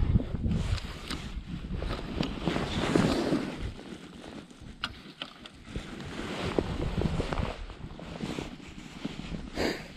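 Wind buffeting the microphone, with rustling handling noise from clothing and gear and a few sharp clicks.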